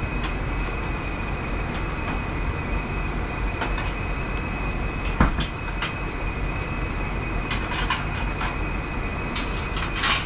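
Steady low rumble of commercial kitchen machinery with a thin, steady high whine, and scattered light clicks and knocks of utensils, the sharpest about halfway through.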